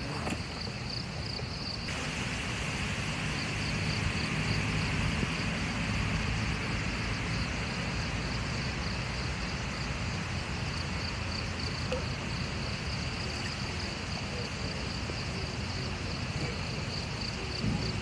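Strong wind buffeting the microphone in a low, steady rumble with a hiss that swells about two seconds in, while insects keep up a high, pulsing trill.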